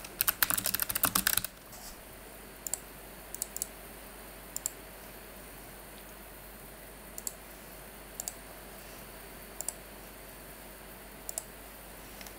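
Computer keyboard typing in a quick burst for about a second, then single and double mouse clicks every second or so.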